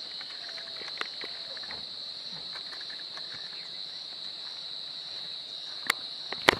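A steady, high-pitched chorus of insects singing. A few sharp clicks stand out near the end.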